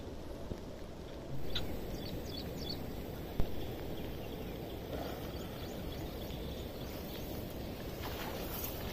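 Outdoor wind rumble buffeting the microphone, getting louder about a second and a half in, with a few short high chirps soon after and a single sharp knock about three and a half seconds in.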